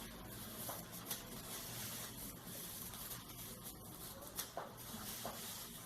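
Faint handling noise: light rustling with a few soft taps scattered through it, from hands moving craft materials.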